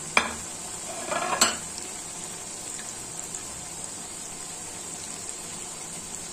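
Breaded chicken-cheese mashed potato patties shallow-frying in oil with a steady sizzle. A utensil knocks and clatters against the pan a couple of times in the first second and a half.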